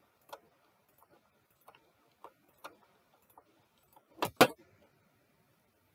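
Computer mouse clicking: a scattering of faint clicks, then two louder clicks in quick succession about four seconds in.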